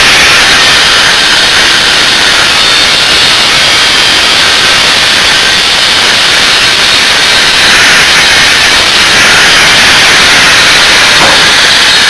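Angle grinder running continuously under load, its disc cutting through metal to free the compressor from a heat-pump unit.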